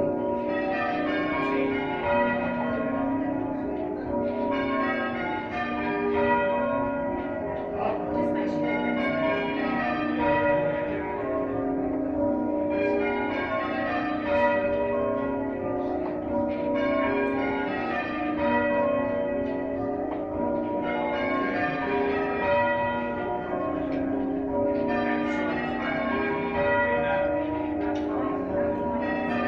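Church bells ringing a continuous peal in English change-ringing style: the bells strike one after another in even rows that swell and repeat about every four seconds.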